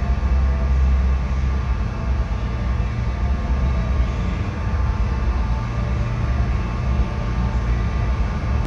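Steady low rumble and hum of a paint spray booth's air system running while a spray gun is worked over a car, heard through the booth's glass.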